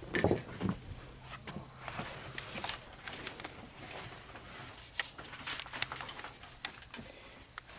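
Junk being handled and shifted while rummaging: scattered knocks, clinks and rustling of objects being moved.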